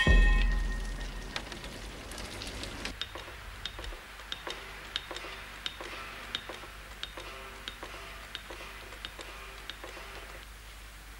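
A deep low boom at the start fades away over about three seconds. Then come evenly spaced sharp clicks or knocks, about three every two seconds, steady to the end.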